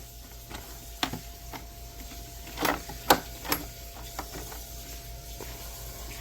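Hard plastic socket-set case being unlatched and opened: a few separate sharp clicks and knocks from its latches and lid, the loudest about three seconds in.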